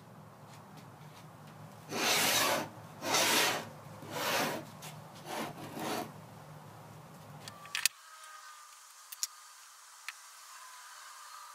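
Wooden sand-casting flask handled by hand: about five short scraping rubs of wood on wood over some four seconds as the halves are worked apart and slid, then a sharp knock, followed by only a few faint clicks.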